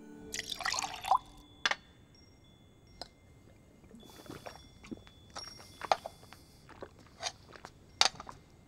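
Light clinks and knocks of a drinking glass and lidded ceramic serving bowls, with water being drunk from the glass. The sharpest knocks come about a second in and near the end.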